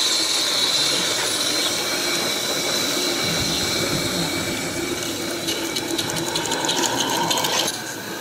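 Small live-steam garden-scale locomotive running. Steam hisses with a thin high tone that fades over the first few seconds, then a fast, even mechanical clicking comes in during the second half.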